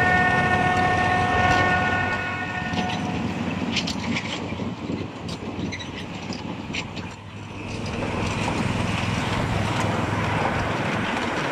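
A farm ride train sounds its horn, a chord of several steady tones held for about three seconds at the start. The open wooden carriages then run on with a steady low rumble and scattered clicks.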